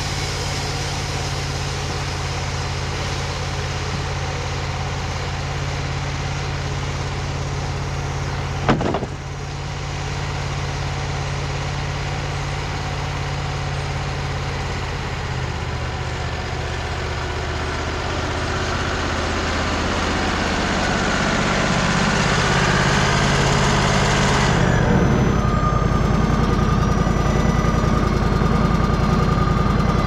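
Wood-Mizer LT35 HD bandsaw sawmill's engine running steadily, with one sharp clank about nine seconds in. Over the last dozen seconds the sound grows louder, and it turns deeper near the end as the saw head travels back up close.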